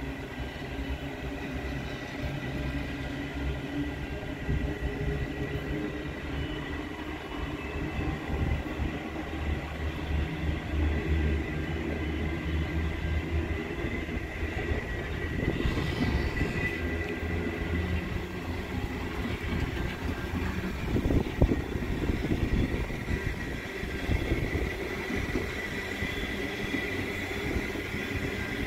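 Indian Pacific passenger train carriages rolling past on the rails: a steady rumble of wheels on track, with one sharper knock about three-quarters of the way through.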